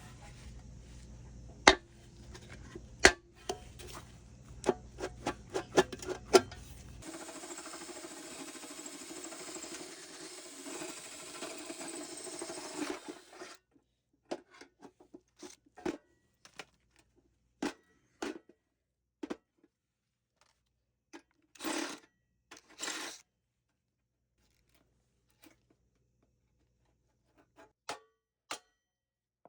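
Metal parts of a GE washer transmission case being handled and pulled apart: sharp metallic clicks and knocks, a continuous rough rattling noise lasting about six seconds, then scattered clicks and two short scraping sounds.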